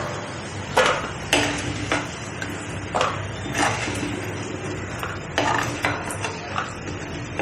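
Steel slotted ladle clinking and scraping against a clay kadai and a plate in irregular sharp knocks, some ringing briefly, as fried cashews and raisins are scooped out of hot ghee.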